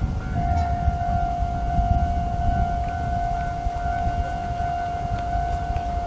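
Japanese level crossing alarm sounding: a single steady electronic tone that grows louder about half a second in and holds, over a low rumble.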